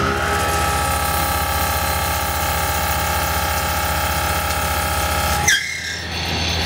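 Mitsubishi 16 mm four-flute end mill on a live tool, spinning at 2051 rpm and side-milling 4140 steel at full 16 mm depth. It gives a steady high-pitched cutting squeal over a fast low pulsing. The sound breaks off with a brief sharp noise about five and a half seconds in, then the machine sounds quieter and more uneven.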